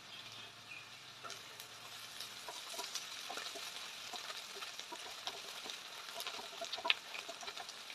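Sliced onions and chopped coriander sizzling in oil in a stainless steel pressure cooker. From about a second in, a wooden spatula stirs and scrapes against the pan with many small clicks and one sharp clack near the end.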